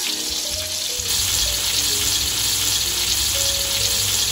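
Soft tofu cubes, dusted with corn flour, frying in hot oil in a wok over high heat: a steady, even sizzle of bubbling oil. The tofu is nearly done, its outside setting firm.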